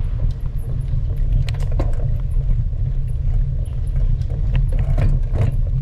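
Wind buffeting the microphone of a camera on a moving road bicycle: a loud, steady low rumble, with a few faint clicks over it.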